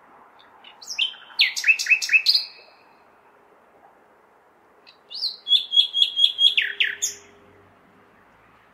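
Nightingale singing: two loud phrases, about a second in and again about five seconds in, each a fast run of repeated notes and steep falling whistles, the second with a rapid trill of repeated notes on one pitch. Beneath them runs a faint steady hum of city background noise.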